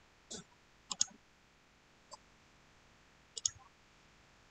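Faint computer mouse clicks: a few single clicks scattered over the seconds, with two in quick succession about a second in.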